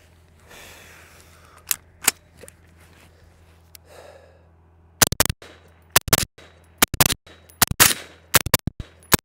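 Suppressed semi-automatic rifle fired in rapid doubles, about six pairs of shots starting about halfway in. The two shots of each pair come less than a fifth of a second apart, and the pairs come at a steady rhythm under a second apart.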